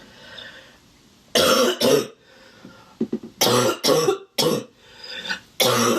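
A young woman's harsh, barking cough in a fit: a breath drawn in at the start, two coughs about a second and a half in, then a run of about five more in quick succession. It is a sick, congested cough, which she puts down to dust in the air.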